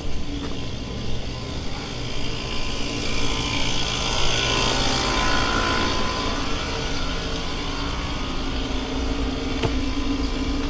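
A car running, with a swell of noise about four to six seconds in, as of a vehicle passing.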